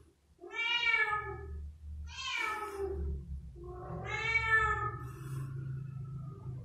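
A young tabby kitten meowing three times in a row, each call about a second long and the last one the longest. A low steady hum sits underneath.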